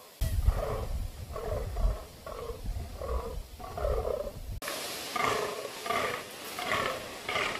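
Fallow bucks in the rut croaking: short, deep, belching groans repeated in a steady rhythm, about two a second. A low rumble sits under the first half, and about halfway through the calls abruptly become louder and clearer.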